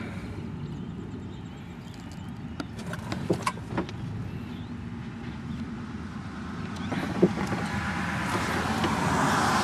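Golf cart moving across the grass: a steady low rumble with a few sharp rattles and knocks, getting louder over the last few seconds.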